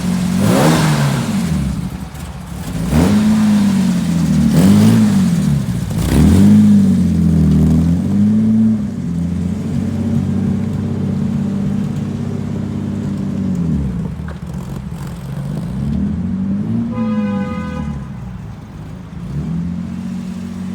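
1971 Jaguar E-type engine idling and being revved in quick blips, its pitch rising and falling back each time: about five blips in the first eight seconds, then a steady idle, and one more blip about sixteen seconds in.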